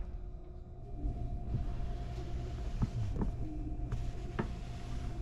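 Steady low hum with a faint steady tone inside a JR West 287 series electric train car, with a few small clicks and knocks scattered through it.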